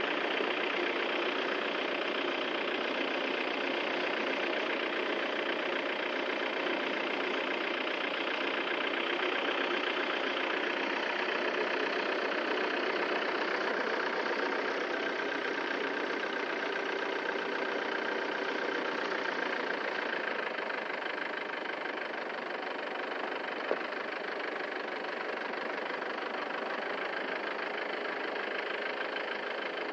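A steady engine running without a break, with a single short click about 24 seconds in.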